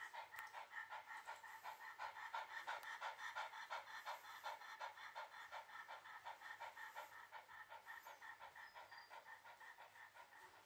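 Shiba Inu panting with its mouth open: quick, even breaths at about four a second.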